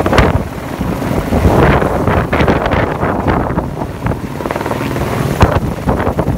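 Helicopter hovering overhead as it lifts a heavy sling load on a long line, its rotor noise loud and gusty.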